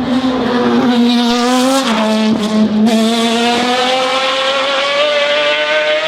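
Race car engine running hard under acceleration, its note climbing steadily, with a brief dip about two seconds in as it changes gear.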